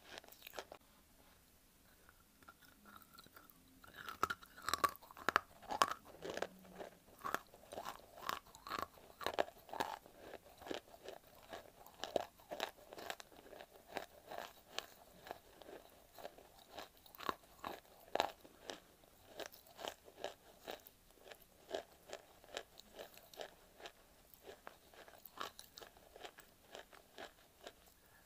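Dry white clay crunching between the teeth as it is bitten and chewed, heard close up. After a quiet start, a steady run of crisp crunches comes a few times a second from about four seconds in.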